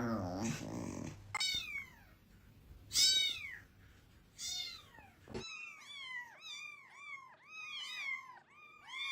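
Cat meowing: three drawn-out meows that fall in pitch, about a second and a half apart, then a quick run of short, high meows, two or three a second.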